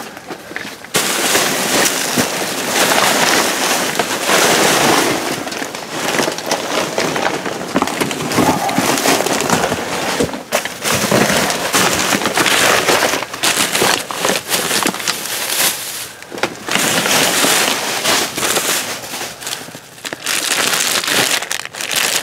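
Plastic trash bags and food packaging crinkling and rustling as hands rummage through them, a dense crackling with a few brief pauses.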